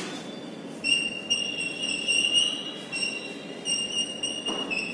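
Chalk squeaking on a blackboard during writing: a high-pitched squeal that starts about a second in and breaks off and resumes several times between strokes.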